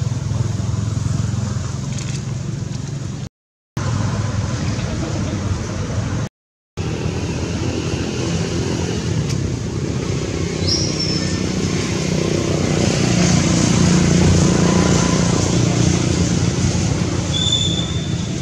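Steady outdoor background rumble and hiss with a low engine-like hum. It cuts out briefly twice, and short high whistles come about ten seconds in and again near the end.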